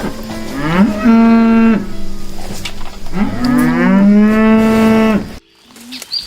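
Cow mooing twice: two long moos, each rising in pitch and then held, the second longer than the first.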